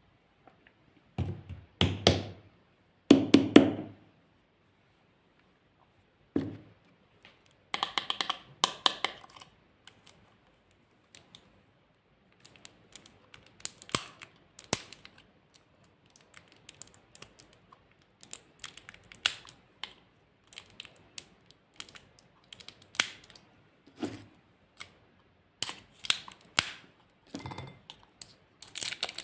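Glossy slime being handled, a run of irregular sticky clicks and small pops. A few louder squelching bursts come in the first four seconds and again around eight seconds.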